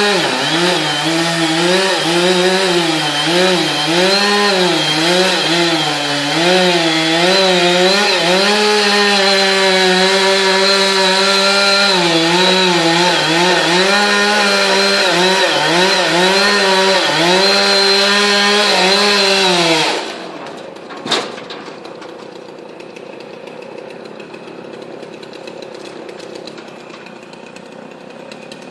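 Two-stroke chainsaw running at high speed and cutting wood, its pitch dipping and recovering again and again as the chain bogs under load. About twenty seconds in it stops abruptly, and a second later comes a single sharp crack or thump, leaving only a quieter steady background noise.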